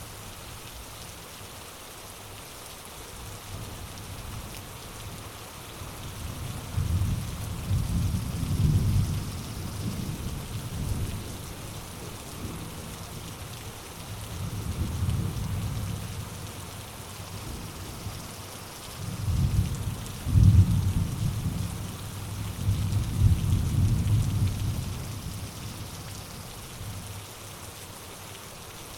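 Steady rain falling in a rainforest, with low rumbles of thunder that swell and fade about four times.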